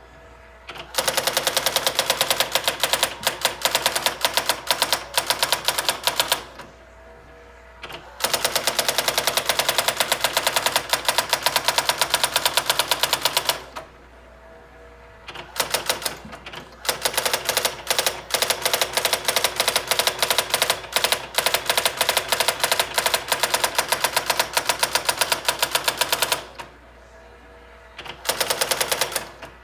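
Brother SX-4000 electronic typewriter typing, a rapid run of sharp strikes several times a second over a steady motor hum. The runs stop briefly several times, about a second or two each, at the end of lines.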